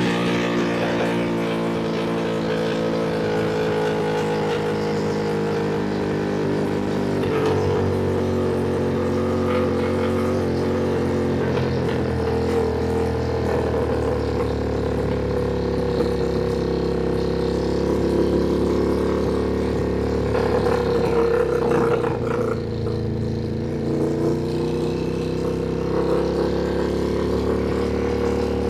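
Ducati Panigale V2 motorcycle's 890 cc V-twin engine running steadily under way. Its pitch changes about seven seconds in and again around twenty to twenty-two seconds in.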